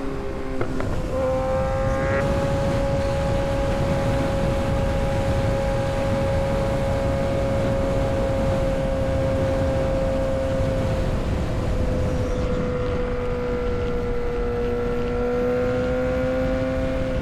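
Kawasaki ZX-6R 636 inline-four engine running at a steady cruise under wind rush. Its note breaks briefly about a second in, then holds steady, dips slightly and rises again near the end.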